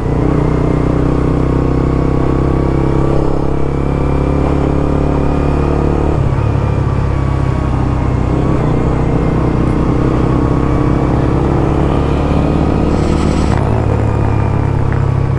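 Suzuki GSX-R150's single-cylinder engine idling steadily through a Prospeed Black CNC aftermarket exhaust, its note shifting slightly about six seconds in and again near the end.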